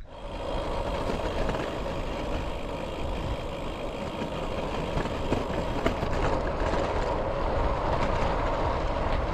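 Wind rushing over the camera microphone and road-bike tyres rolling on a tarmac lane, building up over the first second as the bike gets under way. There are a couple of small knocks about five and six seconds in.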